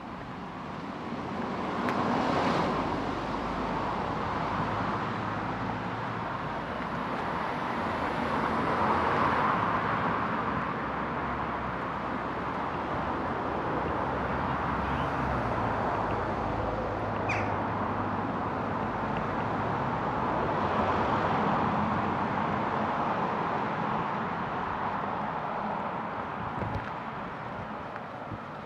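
Road traffic: cars passing one after another. The tyre and engine noise swells and fades three times.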